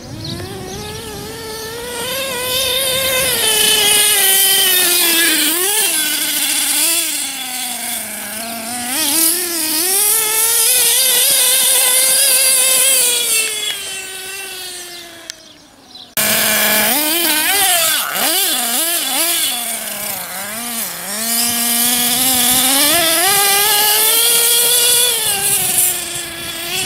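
Small nitro engine of an HPI Trophy 4.6 RC truggy revving up and down as the truck is driven around, its high buzzing pitch rising and falling again and again. The sound breaks off sharply about two-thirds of the way through and then picks up again.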